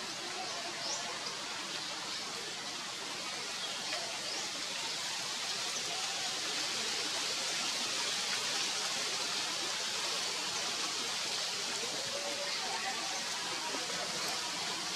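Steady outdoor background hiss, even and high, swelling slightly toward the middle, with a few faint short high chirps in the first few seconds.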